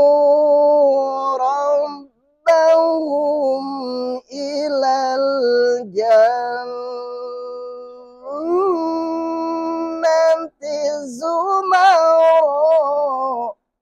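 A man's voice chanting Quranic recitation in the melodic tilawah style: long, high held phrases with wavering ornaments, broken by short breath pauses.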